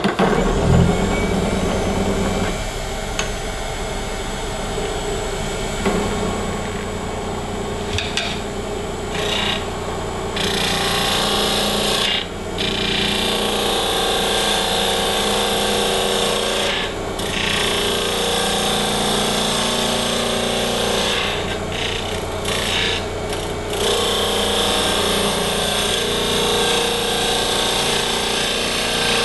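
Wood lathe spinning an olive wood blank while a gouge cuts across its end grain, a steady cutting noise over the hum of the running lathe. The cutting breaks off briefly several times as the tool lifts from the wood.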